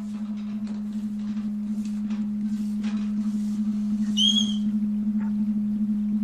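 A steady low hum on one pitch, with a faint rapid flutter, slowly growing louder. A brief high squeak comes about four seconds in.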